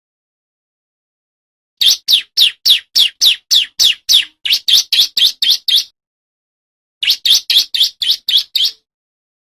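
Male bar-winged prinia (ciblek) singing in rapid runs of sharp, downward-sweeping chirps, about three and a half a second. A long run of about fifteen notes begins a couple of seconds in, and after a short gap comes a run of about seven.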